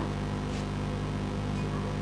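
A steady low electrical hum with a faint hiss, unchanging throughout, and a soft click about half a second in.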